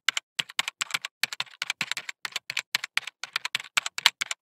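Rapid keyboard typing: a quick, uneven run of key clicks, about eight or nine a second.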